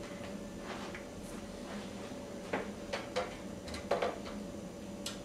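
A few light knocks and clicks in the second half as fishing rods are handled, one set down and another picked up, over a steady low hum.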